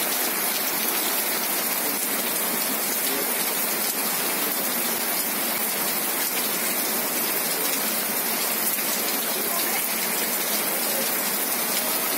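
Rain falling steadily on leaves and bare sandy ground: an even, unbroken hiss.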